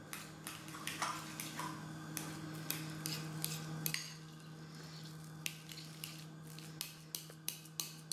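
Metal fork mashing and stirring devilled-egg yolk filling in a small glass bowl: irregular clicks and scrapes of the tines against the glass, several a second.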